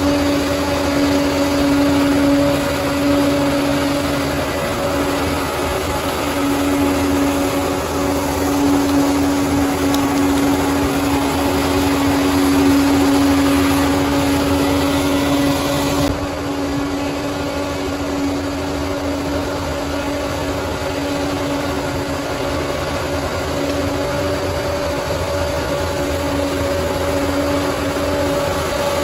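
Bulldozer's diesel engine running steadily under work, a constant droning hum over a low rumble. The sound changes abruptly about halfway through, then carries on.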